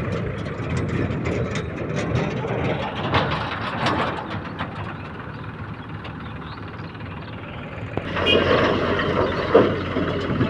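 JCB 3DX backhoe loader's diesel engine running steadily, with scattered knocks and clanks. About eight seconds in the sound grows louder and busier, with a sharp knock shortly before the end.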